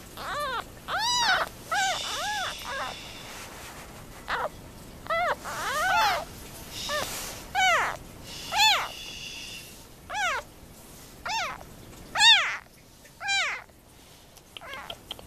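About week-old newborn kittens crying over and over, roughly one loud call a second, each cry rising and then falling in pitch.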